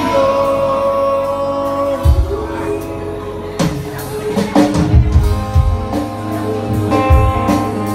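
Live band playing a song: acoustic and electric guitars and bass holding sustained chords, with drum hits through the middle and end.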